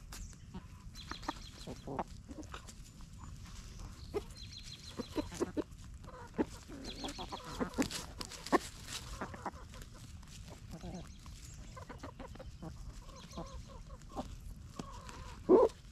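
Chickens clucking softly while they scratch and peck through leaf litter and compost, with scattered rustles and clicks. One louder call near the end.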